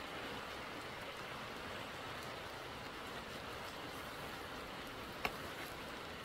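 Steady hiss of rain falling on forest foliage, with one sharp tick of a drop a little over five seconds in.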